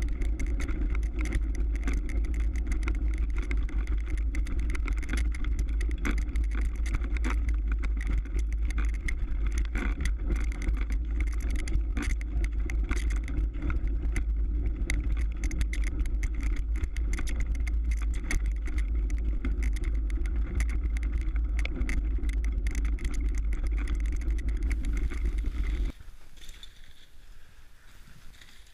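Mountain bike riding over hard-packed snow and ice, heard from a mounted camera: a steady low rumble of tyres and wind on the microphone, with frequent clicks and rattles from bumps in the trail. About 26 seconds in it drops suddenly to a much quieter hiss.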